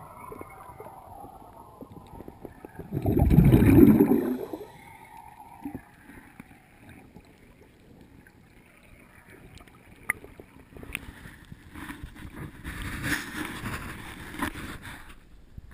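Water sloshing and gurgling around a camera in a waterproof housing held underwater and at the waterline of a yacht's hull, muffled by the housing. About three seconds in there is a loud rush of water lasting a little over a second, and near the end the splashing picks up again as the camera breaks the surface.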